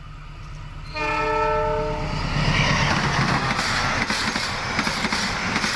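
Train horn sounds one steady chord for about a second, about a second in. Then comes the loud rumble and rush of a diesel-hauled passenger train passing close by, with the wheels clicking over the rail joints.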